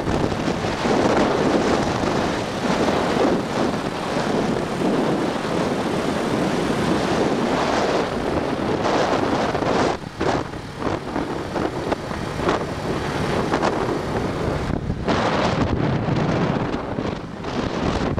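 Small motor scooter's engine running steadily on the move, heavily overlaid by wind rushing over the microphone, with gusty ups and downs and a brief lull about ten seconds in.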